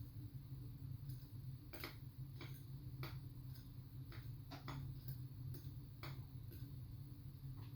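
Small, sharp metallic clicks and taps at irregular intervals from handling a picked lock cylinder and its pins, over a steady low hum.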